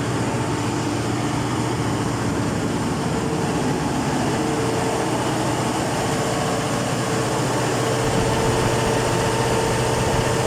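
Cummins KTA50 16-cylinder diesel engine running steadily on test after a general overhaul, a continuous heavy engine drone with a steady hum that grows slightly louder toward the end.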